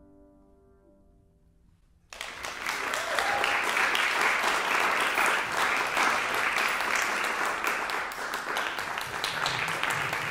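An ensemble's final held chord fades away into a brief hush. About two seconds in, audience applause breaks out abruptly and carries on steadily.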